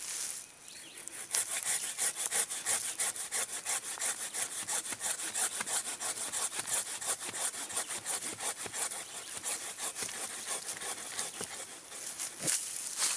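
Gerber Exchange-A-Blade hand saw cutting into the trunk of a live sweet gum tree, in quick, even back-and-forth strokes. The strokes start about a second in and pause briefly near the end before starting again.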